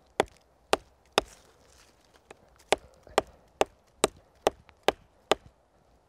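Knife blade chopping into a dead pine branch to get at the resinous fatwood: sharp knocks of steel on wood, about two a second, with a short pause after the first three.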